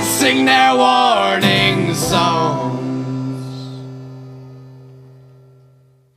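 The closing bars of a song with guitar and singing, ending on a held chord that slowly fades away.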